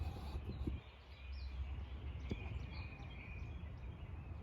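Outdoor background noise: a steady low rumble with faint bird chirps and a few light clicks.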